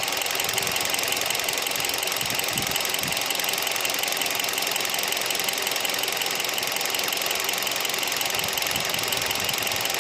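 2015 Kia Rio's 1.6-litre four-cylinder petrol engine idling steadily when warm, still on its original factory-fill oil at about 3,000 km.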